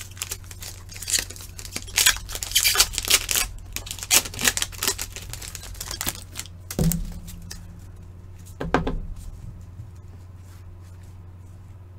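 Upper Deck hockey card packs being torn open, with the wrappers crinkling and the cards being handled. A fast run of tearing and crackling fills the first four or so seconds, then turns sparse and dies away after about nine seconds.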